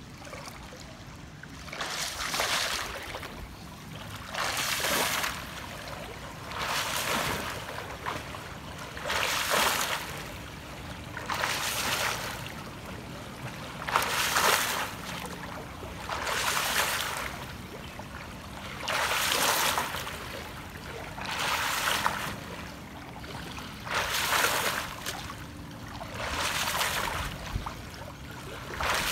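Swimmer doing butterfly stroke: a splash of water with each stroke, about one every two and a half seconds, with quieter water noise between.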